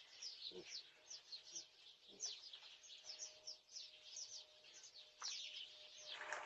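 Faint birds chirping: many short, quick, falling chirps in a steady stream, over a faint steady hum.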